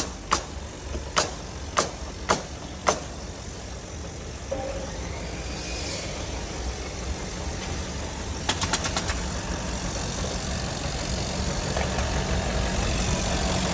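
A vehicle engine running at idle, a steady low rumble that slowly grows louder. Five sharp clicks or knocks come in the first three seconds, and a quick run of clicks about eight and a half seconds in.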